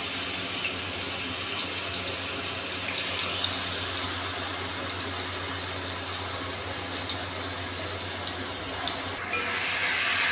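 A coarsely ground paste of shallots, garlic, ginger and green chillies sizzles and crackles in hot sunflower oil in an aluminium kadai as it is scraped in from a mixer jar. Near the end the sizzle gets louder as it is stirred with a spatula. A steady low hum runs underneath.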